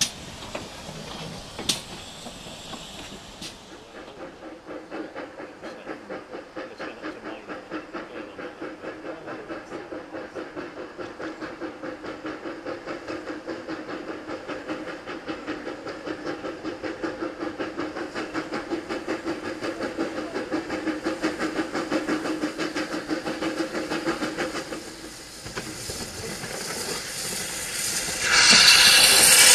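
GWR steam railmotor No. 93 working steam, its rapid, even exhaust beats growing louder as it approaches. Near the end comes a loud rush of steam hiss as it passes close by.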